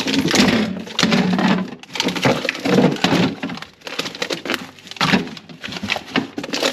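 Plastic-wrapped frozen meat packs crinkling, cracking and knocking together as they are handled and sorted, in several bursts of rustling with sharp clicks.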